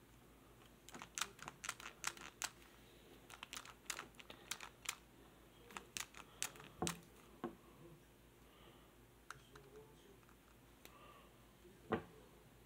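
Hard plastic Davy Jones Happy Meal figure handled in the fingers and knocked against a wooden table: a quick run of light clicks and taps, a few scattered ones, then a single louder knock near the end.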